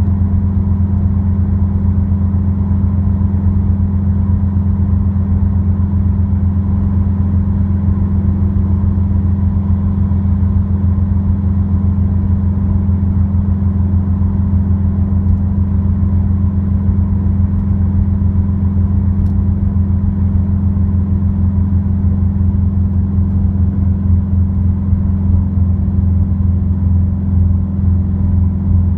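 Subaru WRX turbocharged flat-four with an Invidia N1 dual exhaust cruising at a steady speed, heard inside the cabin: a steady low exhaust drone that holds one pitch throughout.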